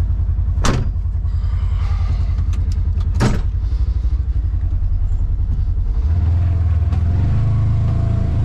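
Polaris Ranger 1000 side-by-side's twin-cylinder engine running under load, heard from inside the cab as the machine drives itself out of a mud hole. Two sharp knocks come at under a second in and at about three seconds in, and the revs rise and hold higher about six seconds in.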